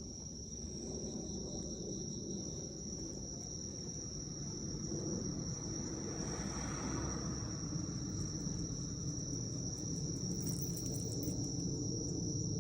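Autumn crickets singing in a steady, unbroken high-pitched chirring, over a low background rumble.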